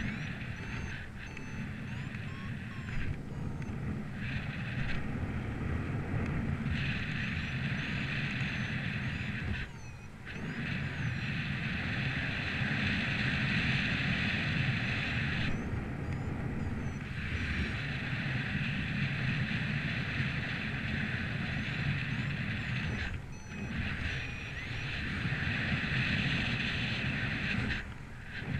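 Gusty wind blowing: a low rumble of wind on the microphone under a hiss that swells and eases in long gusts, dropping off briefly about ten seconds in, again later, and near the end.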